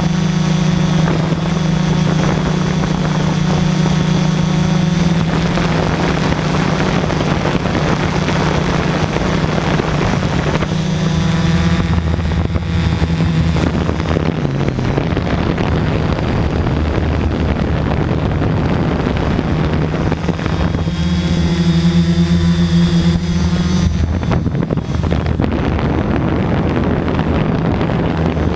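Camera drone's electric motors and propellers buzzing in flight, heard from on board, with wind rushing over the microphone. The buzz's pitch shifts as the drone manoeuvres and dips briefly about halfway through.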